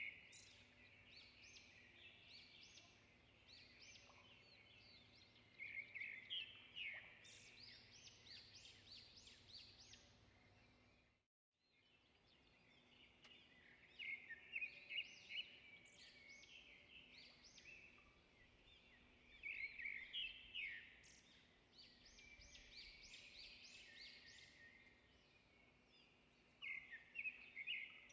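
Faint birdsong: many small birds chirping and trilling in quick high notes, broken by a brief moment of silence about eleven seconds in.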